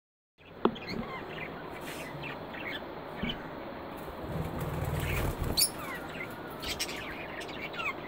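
Budgerigars in an aviary chattering with many short chirps and warbles, including a wavering whistled call near the end. There is a sharp click just after the start and a low rumble about halfway through.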